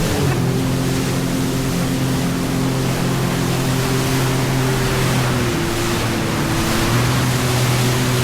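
Jet ski engine running at a steady cruising speed under a constant rush of water and wind. Its note dips briefly about five to seven seconds in, then picks back up.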